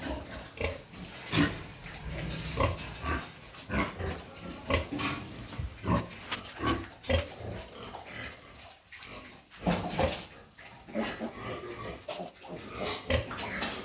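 Pigs grunting and squealing in many short calls one after another, from a farrowing sow and her newborn piglets.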